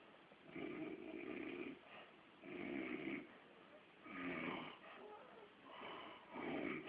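A man snoring in his sleep: a run of snores about every one and a half to two seconds.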